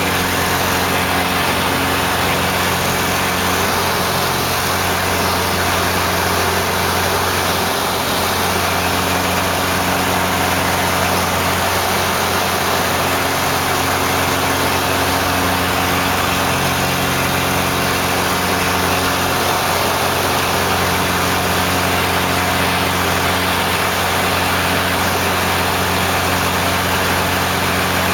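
Laser 230 aerobatic monoplane's piston engine and propeller running in flight, heard on board over heavy rushing airflow. The engine note steps up and down several times as the plane manoeuvres.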